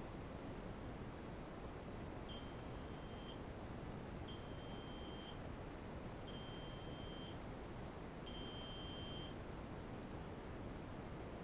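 Piezo buzzer on a PIC16F84A three-minute ramen timer sounding four high-pitched beeps, each about a second long, one every two seconds: the alarm that the three minutes are up.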